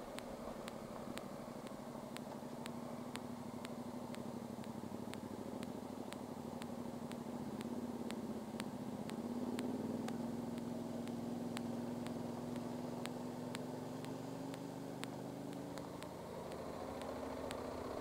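Motorcycle engine running under way, heard from the bike. Its note climbs slightly about halfway through, holds steady, then eases off near the end.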